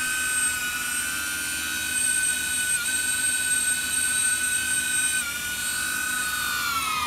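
DJI Avata cinewhoop's ducted propellers and brushless motors whining steadily as it hovers close by, with two brief dips in pitch. Near the end the pitch begins to slide down as the motors are throttled down for landing.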